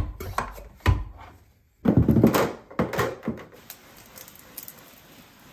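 DeWalt hand pump sprayer being pressurised by hand: a couple of thumps, then a quick run of louder pump strokes about two seconds in.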